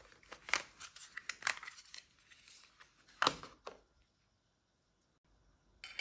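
Plastic battery cover of a KT-208 universal air conditioner remote being slid off: a run of scrapes and clicks, the loudest click about three seconds in, and one more click near the end.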